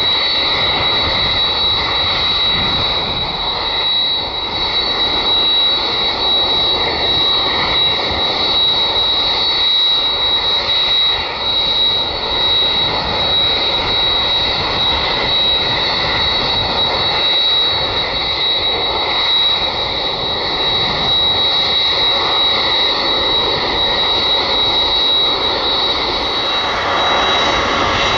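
Jet engines of a Boeing 767 freighter taxiing at low power: a steady rush with a high, steady whine on top that fades near the end.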